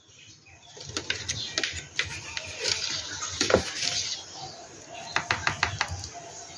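Light clicks and taps, with a quick run of sharp clicks about five seconds in.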